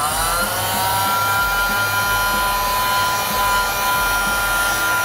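Electric heat gun running on its high setting: its fan motor whine settles to a steady pitch within the first second, over a steady rush of blowing air.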